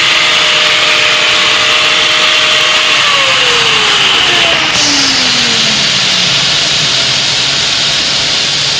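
Loud, steady rushing noise of machinery at a welding job. A motor tone holds steady, then winds down in pitch from about three seconds in, as a spinning machine slows to a stop.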